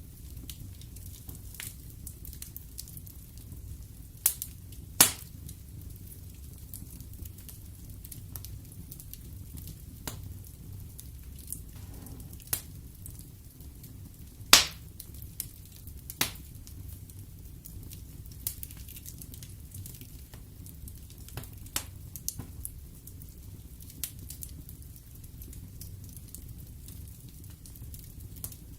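Wood fire burning in a fireplace: a steady low rumble of the flames with scattered sharp crackles and pops of the burning logs, the loudest pops about 4 and 5 seconds in and again near the middle.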